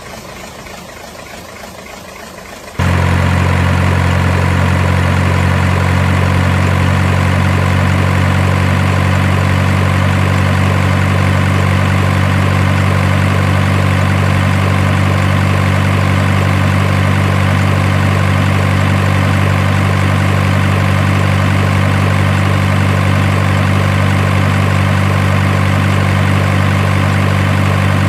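Steady heavy engine idling sound with a deep, even hum that never changes. It starts abruptly about three seconds in, after a quieter stretch of noise.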